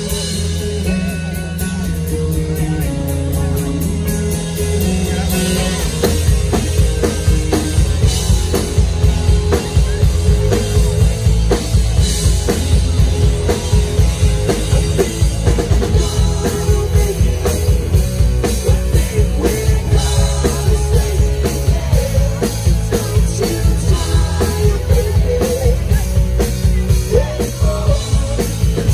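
Live rock band playing: guitar and bass hold notes at first, then the drum kit comes in with a steady beat about six seconds in and the music gets louder.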